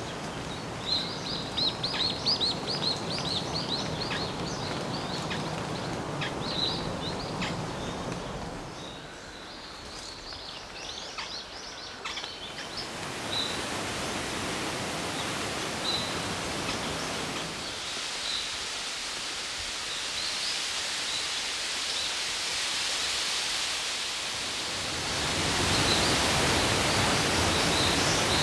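Forest ambience of birds singing: busy, rapid chirping for the first several seconds, then a single short high call repeated every couple of seconds over a steady hiss. Near the end the rush of a waterfall rises and becomes the loudest sound.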